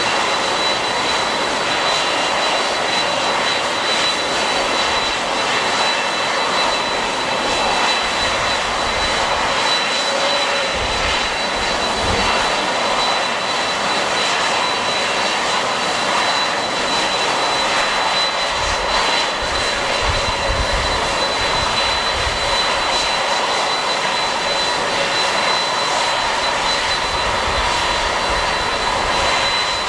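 Airliner engines running with a steady high-pitched whine over a constant rush. Gusts of strong typhoon wind buffet the microphone with low rumbles about ten seconds in and again around twenty seconds.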